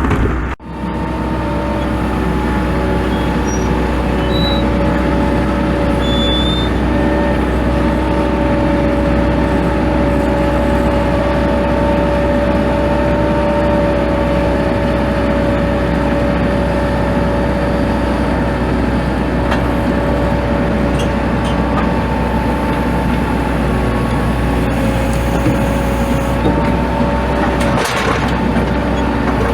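Tractor engine running steadily under load, a low rumble with steady whining tones over it.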